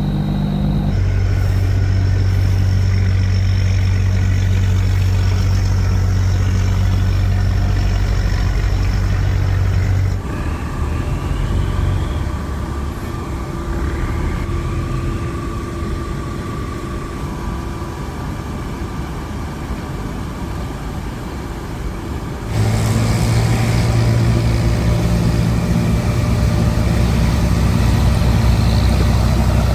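Boat engine running steadily with a low hum, dropping to a quieter, lower note about ten seconds in and rising back to the louder run about twenty-two seconds in.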